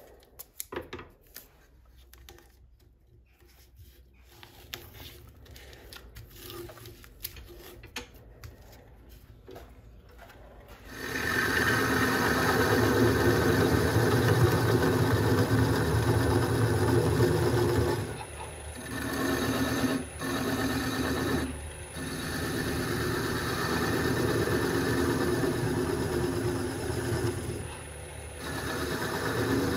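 Scattered light handling clicks and taps, then about 11 s in a wood lathe starts and a turning tool cuts the spinning birch log. This gives a loud steady machine hum with a scraping cut, dipping briefly a few times.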